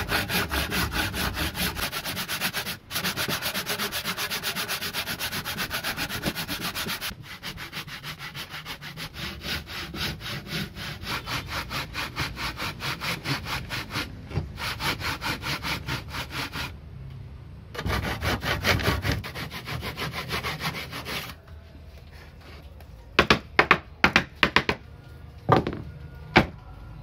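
Hand saw ripping lengthwise through a thick solid wooden board in a steady rhythm of back-and-forth strokes, splitting it into the two leaves of a folding stand, with brief pauses partway through. Near the end the sawing stops and a few sharp wooden knocks follow as the cut piece is handled on the bench.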